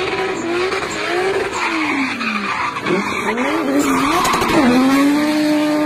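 Drift car sliding sideways with its tyres screeching, the engine revving up and down several times, then held steady near the end.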